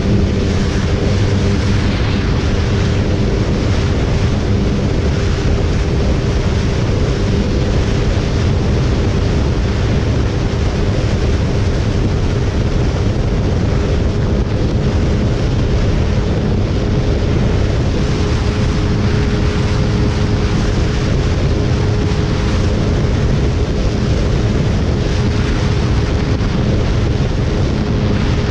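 Suzuki motorcycle engine held at high revs in sixth gear at around 160 km/h, a steady drone that keeps one pitch. Heavy wind buffeting on the microphone runs over it.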